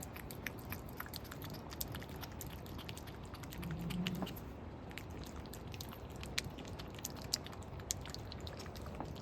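A cat eating, its chewing making scattered small crunching clicks.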